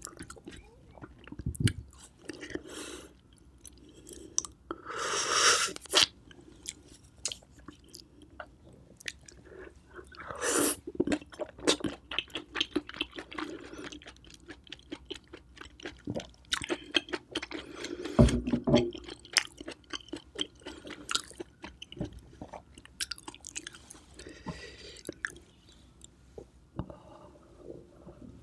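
Close-miked chewing of a mouthful of baked oysters and ramen noodles, wet and smacking, with many small clicks. It is broken by a few louder bursts about a second long, the strongest about five seconds in and another around eighteen seconds in.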